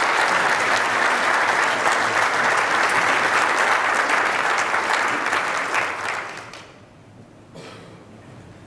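Audience applauding, then dying away about six and a half seconds in.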